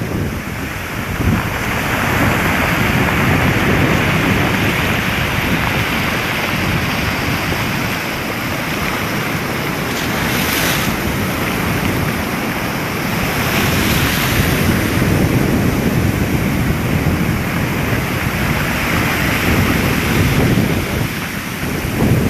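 Rough surf breaking and washing ashore in a continuous rush that swells and eases over several seconds, with wind buffeting the microphone.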